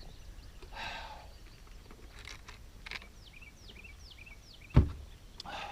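Outdoor ambience with a bird calling four short, high, falling chirps in a row, plus a few light clicks and rustles; a single sharp knock near the end is the loudest sound.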